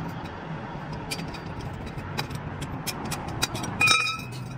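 Metal parts and tools knocking and clinking during truck axle repair work, with one loud ringing metal clang just under a second before the end, over a steady background hum.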